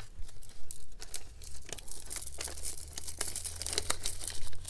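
Small clear plastic bag crinkling in the hands as a strand of glass beads is put back into it: irregular crackles.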